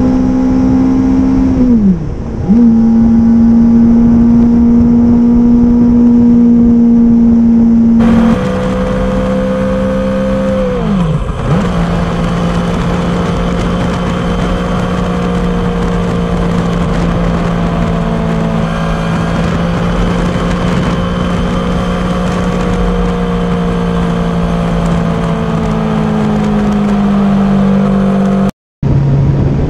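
Suzuki GSX-R750's inline-four engine running at a steady cruising pitch on the move, its note dipping briefly about two seconds in and again about eleven seconds in. The sound cuts out for a moment near the end.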